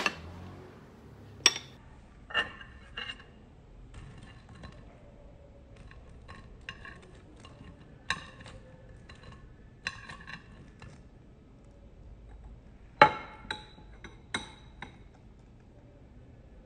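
Metal chopsticks clinking and tapping against a ceramic plate and sauce bowl in scattered sharp clinks, the loudest a quick run of three about thirteen seconds in.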